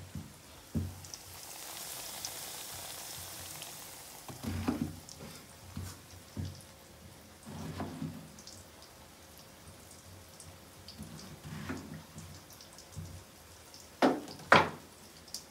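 Kitchen work sounds: a hiss for a few seconds, then scattered knocks and clatter. Two sharp clicks about half a second apart near the end are the loudest.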